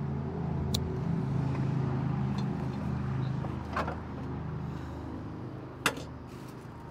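A motor vehicle's engine running with a steady low hum that fades away after about four seconds. Faint clicks come over it, and a single sharp click near the end.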